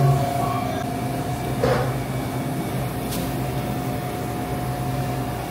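Steady mechanical hum with a faint high steady tone, and a short clatter about a second and a half in.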